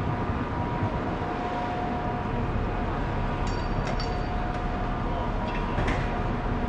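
Steady low machinery rumble with a faint steady whine, from a large cruise ship's engines and thrusters while it berths. A few faint high chirps come in about halfway through.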